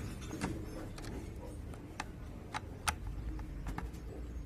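Screwdriver turning out screws from the plastic housing of a Black & Decker steam iron: a handful of sharp, irregular clicks as the tip and screw turn against the plastic.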